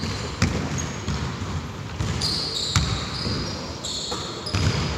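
A basketball game in play: the ball thuds on the court about once a second, with short high-pitched sneaker squeaks on the floor that thicken in the second half.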